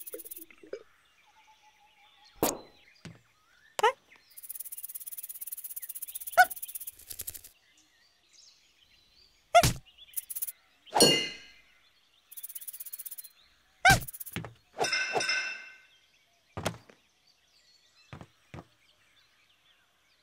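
Cartoon slapstick sound effects: a string of separate knocks, clinks and dings, some ringing briefly, with two stretches of high fluttering buzz, the first about three seconds long and the second about one.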